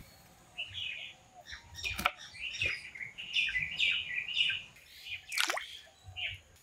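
Small birds chirping repeatedly in quick short calls. About two seconds in, a single sharp chop as a knife cuts through a small citrus fruit onto a wooden board. At about five and a half seconds, a splash of water as the halved citrus fruits drop into a basin.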